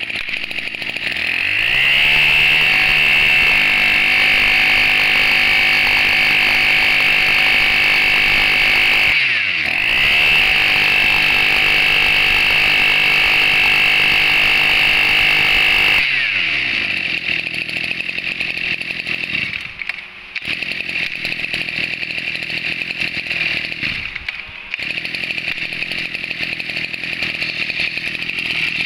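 Maruyama 23cc two-stroke brush cutter engine pull-started, catching about a second in and running at high revs, with a brief dip in speed around nine seconds in. About sixteen seconds in it drops to a steady idle that falters briefly twice.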